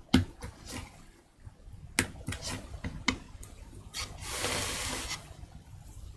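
Handling noise at a carving bench: a woodblock and carving knife being moved, giving several sharp knocks and clicks, then about a second of scraping just past the middle.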